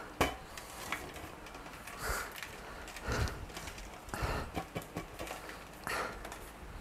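Short knocks and clatters from a flimsy laptop lap tray being shifted around on a lap in bed, with a few short huffs of breath between them.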